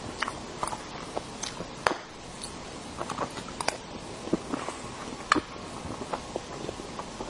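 Close-miked wet mouth sounds of someone chewing soft cream-frosted sponge cake: irregular smacking clicks, a few of them sharper, with a knife scooping frosting off the cake.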